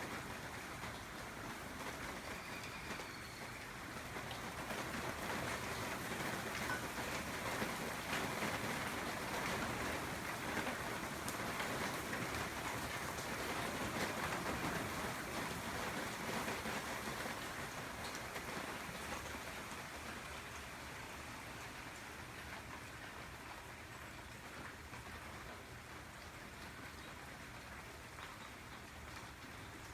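Rain falling steadily, growing louder about five seconds in and easing off again over the last ten seconds.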